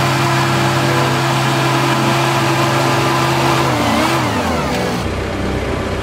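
Diesel engine of a Cat D3K crawler dozer running steadily under load while it pushes snow, its pitch dropping as it throttles down about four seconds in.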